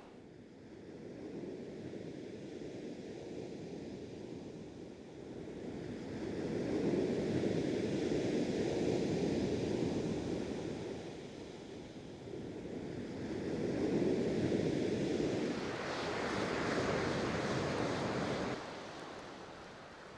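Surf breaking on a shingle beach in slow swells that rise and fall, with wind on the microphone. Near the end a brighter hiss rises and cuts off suddenly.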